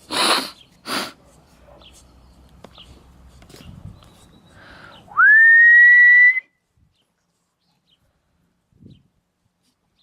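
A single whistled note, about a second long, that swoops quickly up and then holds steady; it is the loudest sound here. Near the start come two short, loud rushing noises, one after the other.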